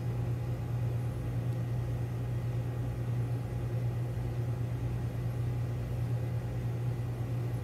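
Steady low machine hum, running unchanged.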